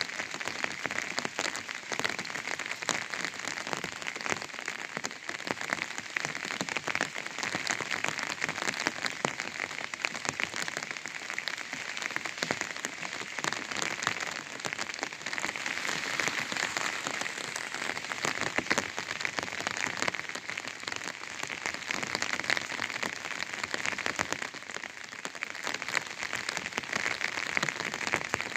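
Rain falling on an umbrella: a dense, steady run of small drop hits on the canopy, with no change in strength.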